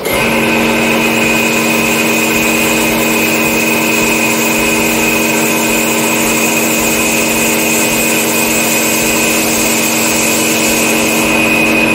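Old NLG single-piston, oil-lubricated air compressor switched on and starting at once, then running loudly and steadily with a hum and a high whine. It is noisy, which the owner puts down to nearly four years of use.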